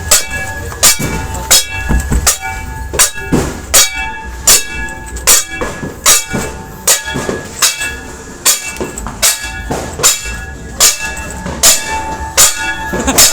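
Metal being banged over and over in a steady beat, about one and a half strikes a second. Each strike rings with a clanging metallic tone, typical of New Year's noise-making to chase away bad luck.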